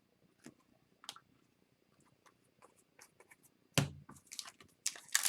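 Faint clicks and light rustles of hockey trading cards being handled, with a brief louder sound about four seconds in.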